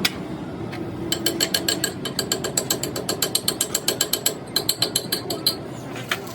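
Rapid metallic ratcheting clicks, about six a second, from a ratchet mechanism being worked. They start about a second in, pause briefly, then resume and stop shortly before the end. A single sharp click sounds at the very start.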